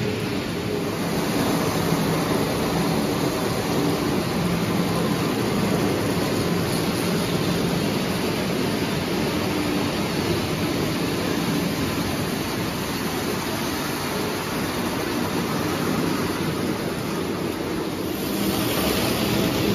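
Lionel O-gauge toy trains running on three-rail track: a steady rumble and rattle of metal wheels on the rails with motor hum. Near the end the sound turns brighter and hissier.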